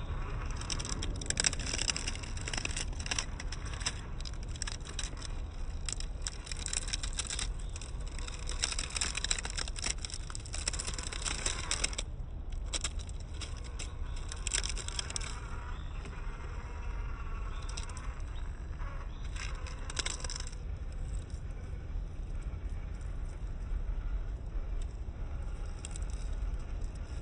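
Small RC crawler's brushless motor and gears whirring in spurts as it crawls over rocks, with small clicks and rattles of the plastic body and suspension. The activity is busy for about the first twelve seconds, comes in short bursts after that and grows sparse near the end, over a steady low noise.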